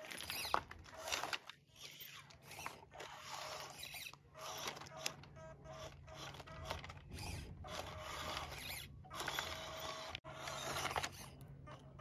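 Small electric motors and gear drives of RC scale crawler cars whirring in short stop-start bursts as they climb, cutting out briefly every second or two.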